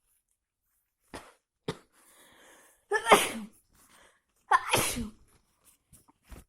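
A person with a cold sneezing loudly twice, about three and four and a half seconds in, each sneeze preceded by short sharp catches of breath.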